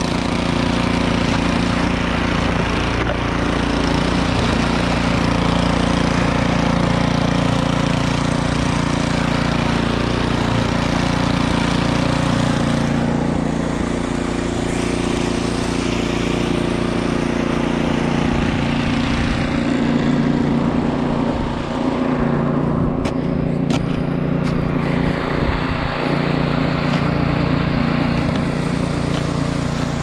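Gas-engined tracked two-stage snowblower running steadily at working speed. A few sharp knocks come in the last third.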